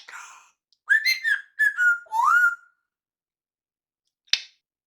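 Pet parrot whistling: a quick run of short whistled notes starting about a second in, ending in a longer note that slides up in pitch. A single sharp click near the end.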